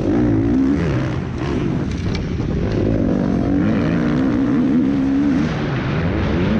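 MX2-class motocross bike engine running hard under the rider, its pitch rising and falling with throttle and gear changes: easing off about a second in, climbing again from about three seconds, and dropping briefly near the end before pulling again.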